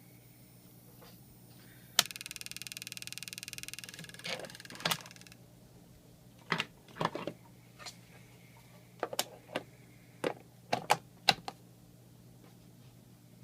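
Ultrasonic mosquito repeller giving off an audible rapid, rasping buzz for about three seconds after a click: the unwanted loud noise of a faulty unit. A series of sharp clicks and knocks follows.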